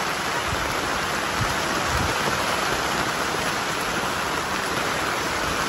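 Steady rain falling, an even hiss without let-up, with a few soft low bumps in the first two seconds.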